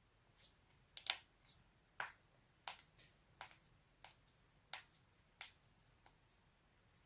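A run of about a dozen sharp joint cracks, popping one after another roughly every two-thirds of a second, the loudest about a second in.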